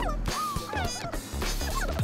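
Background music with a gliding melody over a low bass.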